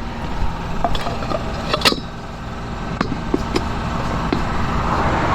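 Light metallic clinks and taps, with one sharper knock about two seconds in, as a chrome baby moon hubcap is handled and fitted onto a truck wheel. A steady low mechanical hum runs underneath.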